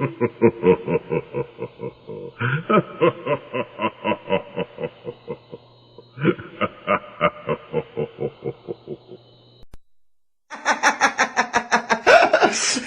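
Recorded laughter sound effects played back to back: a voice laughing in quick, even ha-ha pulses, several clips in a row. It drops out briefly about ten seconds in, then a brighter laugh starts.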